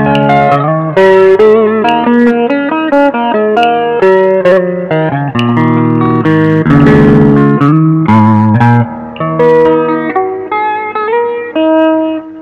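Electric guitar played through a multi-effects pedal: a continuous melodic lead line of quick single notes, with vibrato on a few held notes and longer ringing notes near the end.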